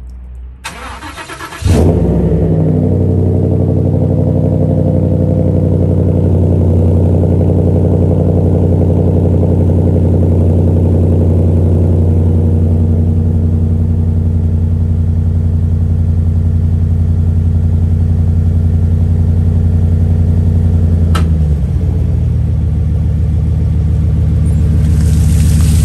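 Ford F-150 pickup's engine cranking briefly, then catching about two seconds in and running at a fast idle through its dual exhaust on a cold start. About 21 seconds in, a click is heard and the idle steps down slightly.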